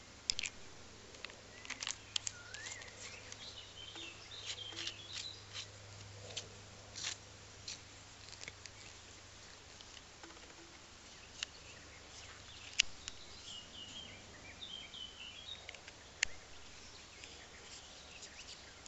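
Small clicks and taps of hands handling a battery and its wire contacts on a wooden table, with faint bird chirps in the background.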